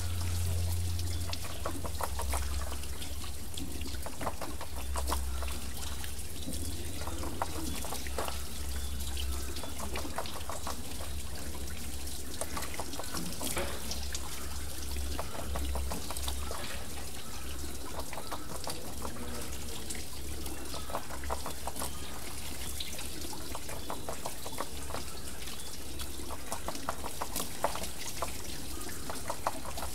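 Water pouring and trickling off a turning water wheel: a steady trickle with a constant patter of small splashes and drips.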